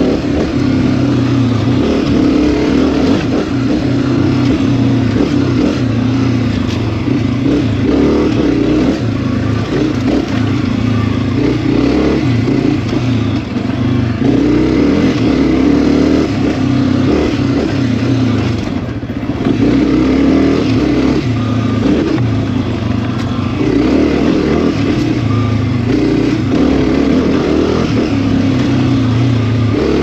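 Honda CRF250F dirt bike's four-stroke single-cylinder engine running on the trail, pitch rising and falling with the throttle. The rider briefly eases off about two-thirds of the way through.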